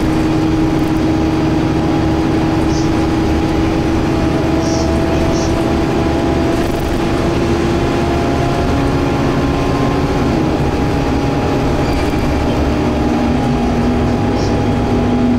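Interior of a Scania K280UB city bus under way: the rear-mounted diesel engine and drivetrain hum steadily with tyre and road noise. A steady whine drops lower in pitch about two-thirds of the way through.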